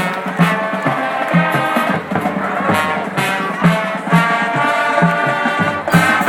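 Marching band playing: brass holding chords over drums keeping a steady beat of about two hits a second.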